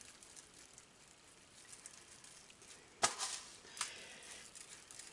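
Rainbow decorating sugar sprinkled by hand over Rice Krispies treats in a metal baking pan: faint scattered ticking and rustling, with a sharper tap and rustle about three seconds in and a smaller click just after.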